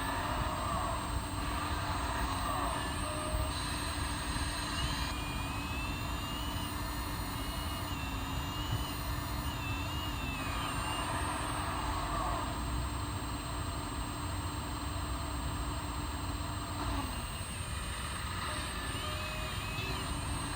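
1/14-scale RC hydraulic excavator running, its hydraulic pump giving a steady hum with higher whining tones that bend up and down as the hydraulics work. The steady hum drops away about 17 seconds in.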